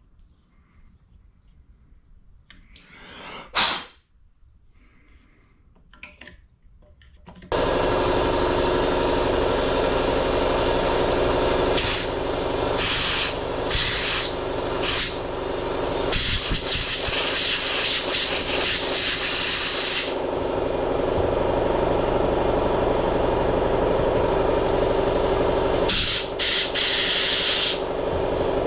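A few light handling clicks and one short sharp knock, then an electric motor starts about a third of the way in and runs steadily, with several short bursts of hiss on top.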